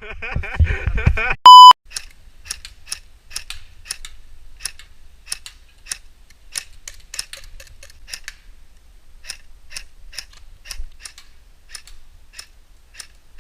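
A loud, short electronic beep about a second and a half in, then sharp, light clicks at a steady rate of about two a second for the rest.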